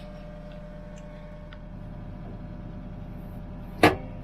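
Diesel engine of an excavator or tractor idling steadily, heard from inside the heated cab, with one sharp knock just before the end.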